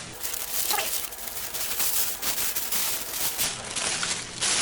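Packaging crinkling and rustling in the hands, a dense run of irregular small crackles as a model freight car is taken out of its wrapping.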